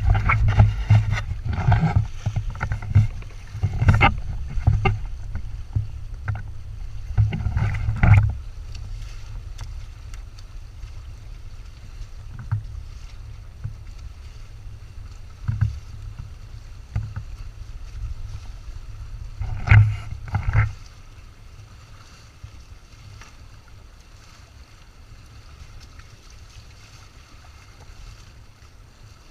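Wind buffeting and water rushing and slapping around a Windrider 17 trimaran sailing under way. The rumble comes with irregular bursts, heavy in the first eight seconds and again briefly about twenty seconds in, and is quieter in between and at the end.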